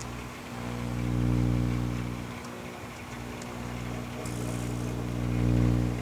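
Microwave oven running with its door removed: a steady electrical hum that swells about a second in and again near the end. A few faint crackles come from the television set burning inside it.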